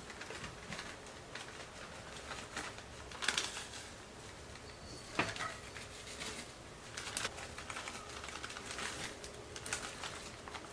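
Dry cake mix being sprinkled over pumpkin batter in a baking dish: faint soft pattering and light taps that come and go, with one sharper click about five seconds in.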